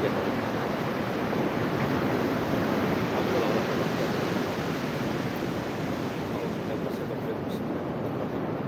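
Steady rush of ocean surf and wind, with wind on the microphone.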